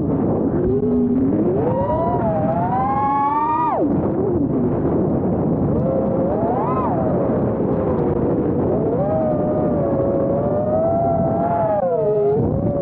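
FPV quadcopter's brushless motors whining, the pitch gliding up and down with the throttle, over a steady rushing noise. The pitch climbs and drops sharply near the start, dips about four seconds in, peaks briefly near seven seconds, then holds fairly level.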